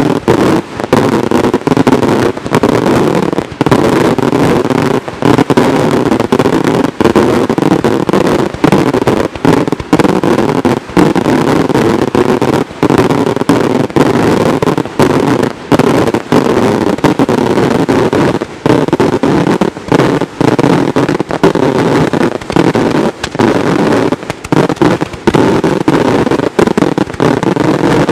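Maltese daytime fireworks battery: aerial shells bursting into many small, sharp reports in a rapid, unbroken barrage, very loud from close to the firing site.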